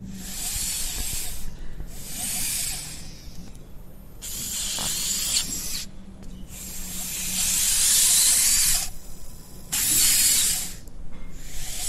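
Robot sound effect: six hissing bursts, each one to two seconds long with short gaps between them, over a steady low hum. The fourth burst is the longest and loudest.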